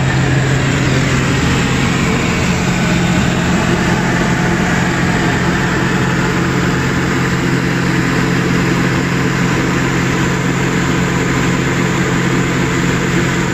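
ULPower UL350iSA 130 hp flat-four aircraft engine and propeller running at steady cruise power in flight, a loud, even drone heard from inside the cockpit.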